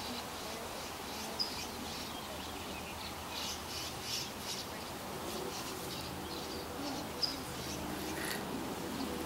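Small birds chirping: scattered short, high chirps, with a cluster of quick notes about three to four seconds in, over a faint steady low hum.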